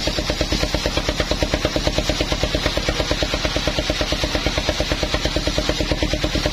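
Engine of a portable circular-saw sawmill running steadily, with an even beat of about eight to nine pulses a second.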